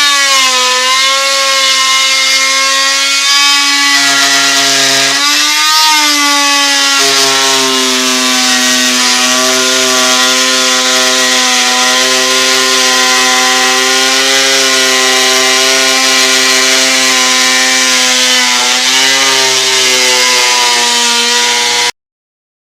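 A power tool cutting into a wooden panel, running steadily with its pitch dipping briefly a few times as it bites under load, then stopping abruptly near the end.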